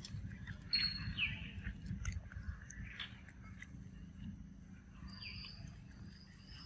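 A macaque biting into and chewing a ripe mango, with wet clicks and smacks of eating. Short bird chirps sound in the background, about a second in and again near the end.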